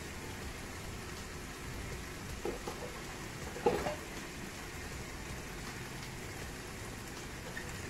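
Steak and butter sizzling steadily in a hot pan, with two brief knocks partway through, the second and louder one a little before the middle.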